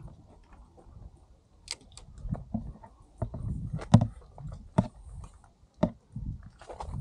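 Irregular knocks, clunks and scrapes of an e-bike being eased through a narrow gap beside a steel gate post. The sharpest knock comes about four seconds in.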